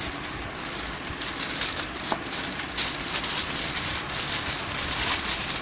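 Plastic packaging crinkling and rustling as hands pull a clear plastic-wrapped item out of a courier mailer bag: a continuous crackle full of small sharp clicks.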